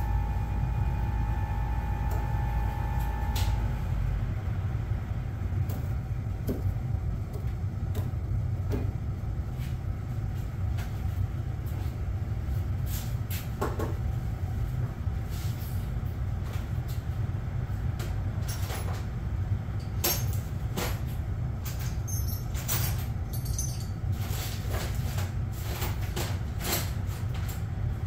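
A steady low rumble with scattered light clicks and knocks, which come more often in the last third; a faint steady tone stops about three and a half seconds in.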